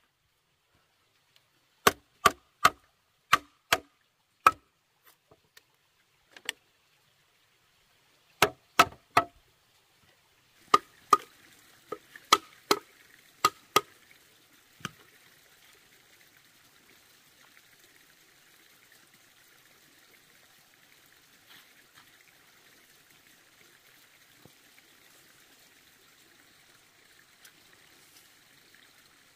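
Sharp blows of a tool striking wood, in quick runs of three to seven strikes, each with a short ring; the last blow lands about fifteen seconds in. From about ten seconds a faint steady hiss like trickling water sits underneath.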